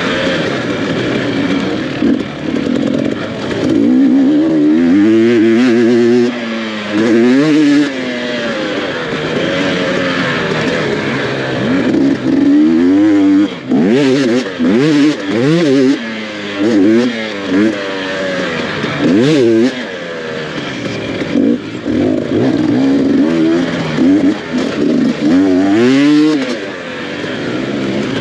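Off-road dirt bike engine revving up and dropping back again and again under the rider's throttle, its pitch climbing and falling every second or two, with short throttle cuts.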